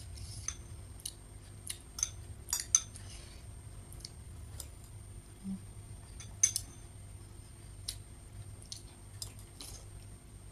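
Metal spoon clinking against a small glass bowl of soup as it is scooped, about a dozen sharp uneven taps, the loudest a little under three seconds in and again past six seconds.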